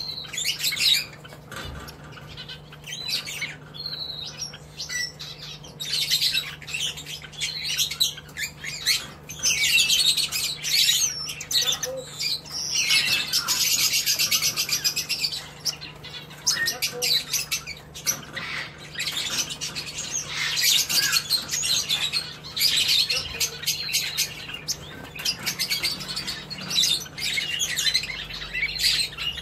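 Caged Northern Red Bishops chirping and twittering in a dense, high-pitched chatter that swells loudest about halfway through and again later, with brief wing flutters as a bird flies across the cage.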